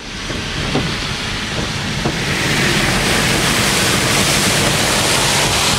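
Heavy storm rain and wind beating on a moving car, heard from inside: a loud, even hiss that builds over the first two seconds and then holds steady.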